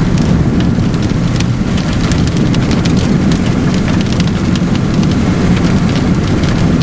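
Car driving on a wet road, heard from inside: a steady low rumble of tyres and engine, with many quick ticks of rain or spray striking the car's body and windshield.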